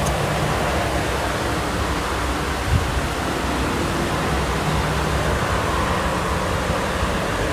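Heavy rain pouring down steadily in a thunderstorm, an even hiss, with one brief low thump about three seconds in.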